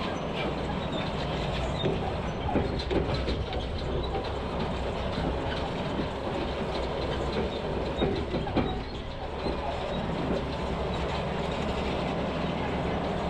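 Logging truck driving on the road, a steady engine and road rumble with rattling and a few louder knocks about two and a half and eight and a half seconds in.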